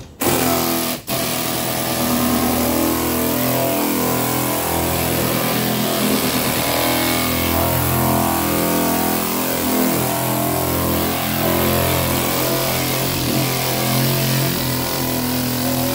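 Pneumatic straight-line longboard sander running steadily against body filler, rough-cutting it down with 40-grit paper; it dips briefly about a second in, then runs on evenly.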